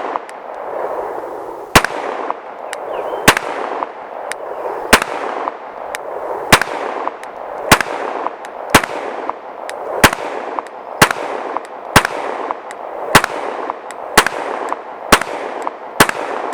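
Glock 19 Gen 4 9mm pistol fired in slow, steady succession: thirteen shots about one to one and a half seconds apart, each followed by a rolling echo.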